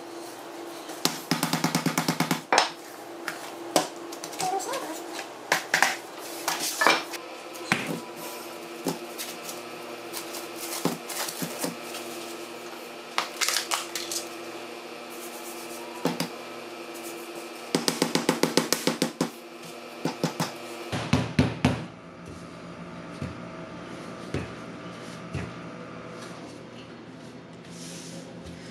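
Soft background music with repeated knocks and clatters of a wooden rolling pin pressing and rolling a block of laminated puff pastry dough on a work mat, some coming in quick runs of taps.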